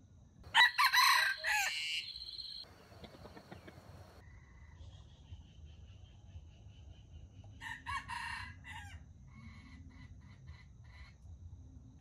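A rooster crows loudly about half a second in, one crow lasting about two seconds. A second, fainter crow comes past the middle, followed by a run of short repeated notes.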